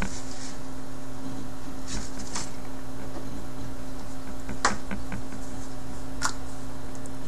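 Steady low electrical hum and hiss, with a few faint light clicks scattered through.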